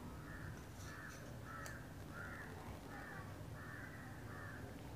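Faint bird calls, short calls repeated a little under twice a second.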